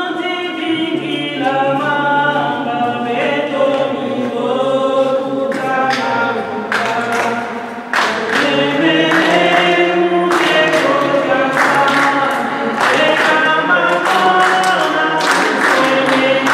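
Congregation singing a baptism hymn a cappella, several voices together with no instruments. About six seconds in, steady rhythmic hand-clapping joins the singing.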